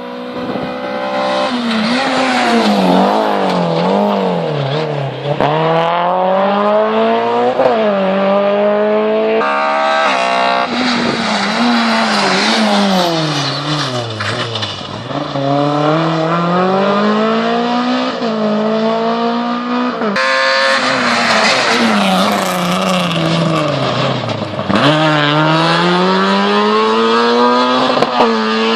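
Race car engine on a hillclimb run, revving hard. Its pitch climbs, drops suddenly, then climbs again, over and over, as it shifts up through the gears. At times it falls away more slowly as the car slows for a corner, then picks up again.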